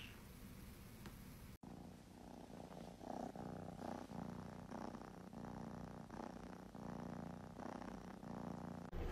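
A kitten purring softly, in rhythmic swells roughly once a second, starting about one and a half seconds in.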